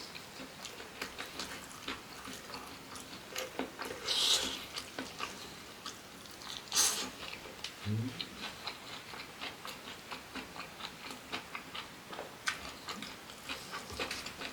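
Close-miked chewing of spicy stir-fried chillies with rice: a steady run of small wet crunching clicks, with two louder hissing sounds at about four and seven seconds in and a short low hum near eight seconds.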